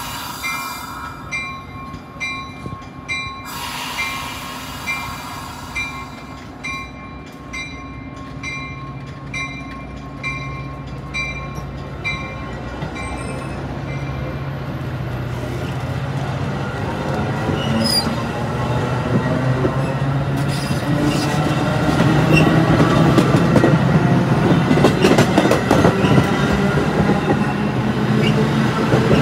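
Metra bilevel commuter train accelerating past, with a grade-crossing bell ringing steadily for the first dozen seconds or so. Then the sound builds as the F40PHM-3 diesel locomotive pushing at the rear comes closer, its engine note rising over the clatter of wheels on the rail joints.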